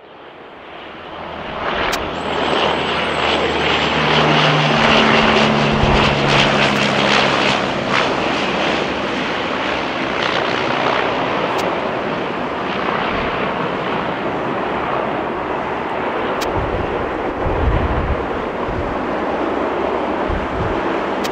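Airliner's engines passing close by: a loud rush of engine noise that builds over the first few seconds and then holds steady, with a low drone in it for a few seconds near the loudest point.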